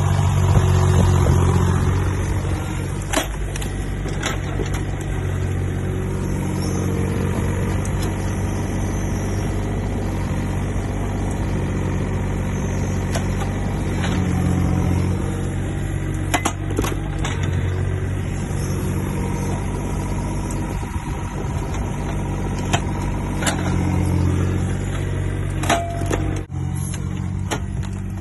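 Takeuchi TB125 mini excavator's diesel engine running steadily, with a few sharp knocks at scattered moments.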